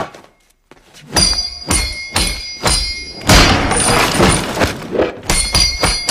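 Film fight sound effects: after a brief hush, a rapid flurry of heavy punches and blows landing, one thud after another.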